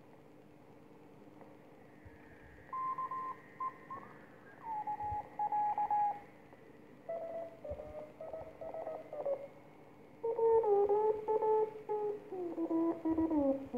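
Morse code (CW) signals from a BC-453 Q-5er receiver as it is tuned across a BC-348's 915 kHz IF: keyed beeps at several different pitches, shifting and sliding down in pitch as the dial turns, over a faint steady hum and hiss. The first signals come in about three seconds in.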